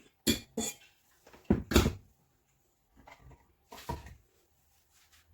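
Utensil knocking and scraping against a mixing bowl in a series of short clanks, the loudest pair a little under two seconds in, as the egg-yolk mixture is tipped out of its bowl into the beaten egg whites.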